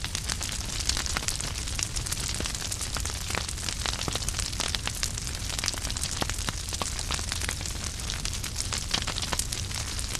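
Wood fire burning in a fireplace: logs crackling with many irregular sharp pops over a steady low rumble of the flames.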